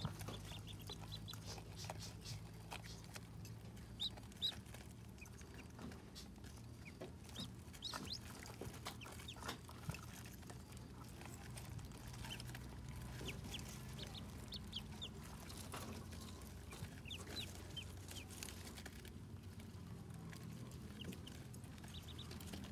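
A brood of ducklings peeping in short, high chirps while they feed, with scattered soft clicks and a steady low hum underneath.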